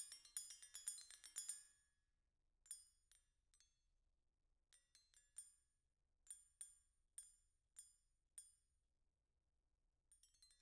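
Spoons played as a percussion instrument by two players: a fast, dense run of bright, ringing clinks for about the first second and a half, then single clinks spaced out in small groups, with a quick cluster near the end.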